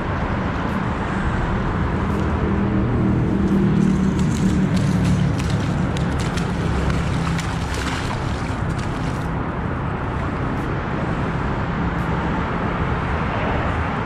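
Steady low rumble of traffic crossing an overhead road bridge, swelling for a few seconds early on, with scattered splashes and clicks as a hooked carp thrashes in shallow water.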